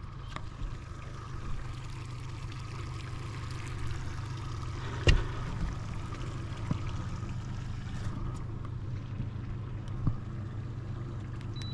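Yamaha 90 SHO outboard idling with a steady low hum while water washes along the boat's hull, with a few knocks on the boat; the loudest is a sharp knock about five seconds in.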